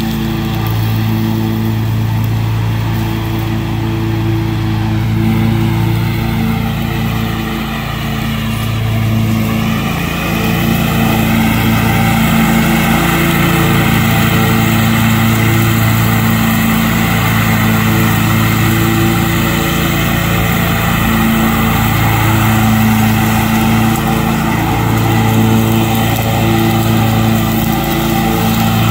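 Bobcat ZS4000 stand-on zero-turn mower running with its blades engaged while mowing, a steady engine note. About ten seconds in, the note dips, then rises and grows a little louder.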